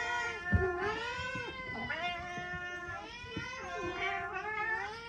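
Several cats meowing at once in long, overlapping, bending calls, begging for food. A short thump about half a second in.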